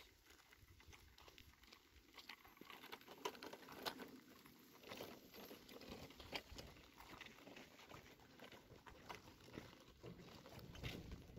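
Near silence with faint, scattered crunching and clicking from footsteps and wheels on a dry dirt path.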